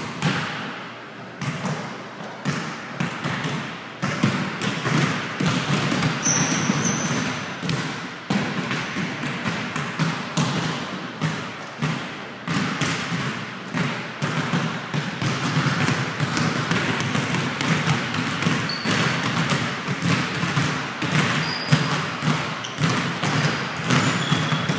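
Basketballs dribbled rapidly and continuously on a hard court floor in a dribbling drill, the bounces coming fast and close together. A few short high squeaks come through now and then.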